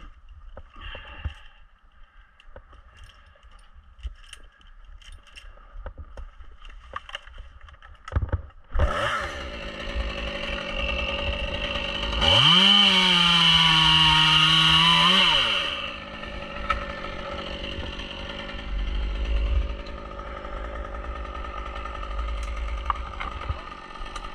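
Stihl chainsaw starting up about eight seconds in and idling, then held at full throttle for about three seconds before dropping back to idle. Before it starts there are only light clicks and knocks.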